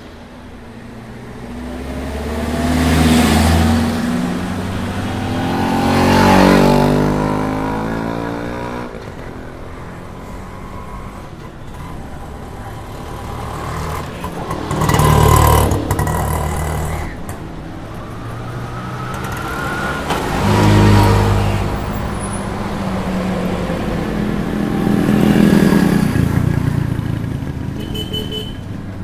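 Road traffic passing close by, one vehicle after another: five pass-bys, each engine and tyre sound swelling up and fading away as it goes past.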